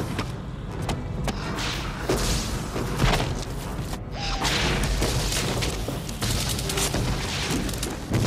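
Film sound-effects track: a steady deep rumble with repeated booms and hissing rushes, briefly dropping away about four seconds in.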